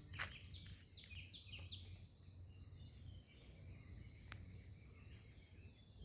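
Near silence with faint bird calls: a quick run of short falling chirps in the first two seconds, and two faint clicks, one at the start and one about four seconds in.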